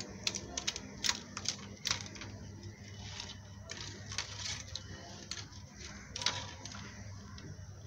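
Fingers mixing a wet chili-powder and salt paste in a stainless steel plate, with irregular small metallic clicks and taps against the steel.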